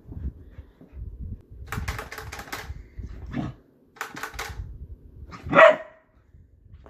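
A mini goldendoodle puppy playing with a plastic grabber toy: two runs of quick clicking from the toy, then one loud, sharp bark about five and a half seconds in.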